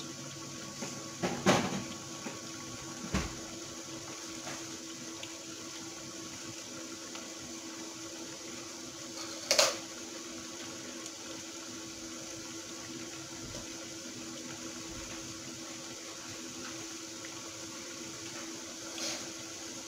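Potato strips deep-frying in hot oil in a small pan, a steady sizzle with a steady hum underneath. A few sudden loud pops stand out, the loudest about a second and a half in and near ten seconds in, with a fainter one near the end.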